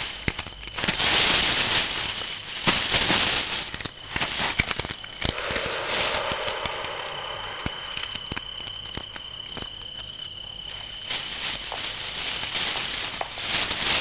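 Scratchy rustling and crackling in dry twigs and sand, with scattered clicks, as monitor lizards scrabble and grapple. A thin, steady high tone runs through the middle seconds.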